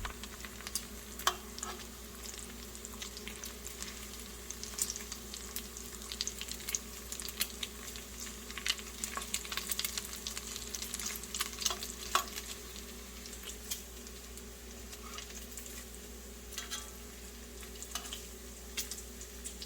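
Bacon frying in a cast iron skillet: a steady sizzle with frequent sharp crackles and pops of spitting grease, cooked toward crispy.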